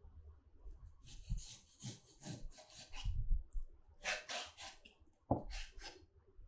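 A Seagull chef's knife slicing through raw pork tenderloin on a cutting board: a few drawn, rasping cutting strokes, with soft knocks of the blade meeting the board.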